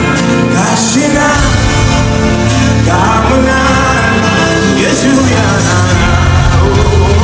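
Gospel worship music: a singing voice in drawn-out, gliding phrases over a full band with a heavy, steady bass.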